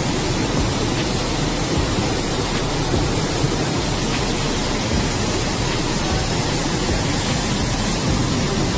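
Muddy floodwater rushing through a street in a flash flood, a steady, unbroken rush of water noise.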